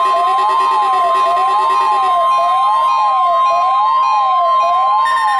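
NOAA Weather Radio warning alarm during the weekly test: a steady, loud tone of about 1 kHz (the 1050 Hz alert tone), with a siren-like tone sweeping up and down about once a second over it.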